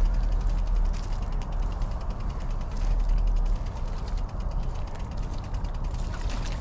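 A steady low rumble with a fast, even mechanical ticking like a ratchet running over it.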